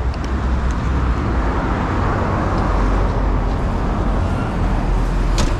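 Steady road-traffic noise with a heavy low rumble, and a single sharp click near the end.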